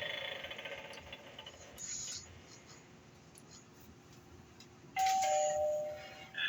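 Gemmy animated eyeball doorbell prop playing a two-note "ding-dong" doorbell chime through its small speaker about five seconds in, a higher note followed by a lower one that rings on for about a second. Earlier, its previous sound effect fades out and there is a brief rustle.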